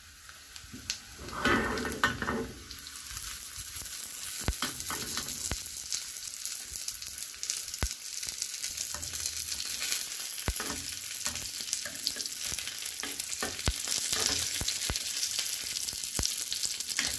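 Sliced shallots, dried red chilli and curry leaves sizzling in a little hot oil in a small pan as a tempering is fried and stirred, with scattered sharp pops. The sizzle grows louder about three seconds in.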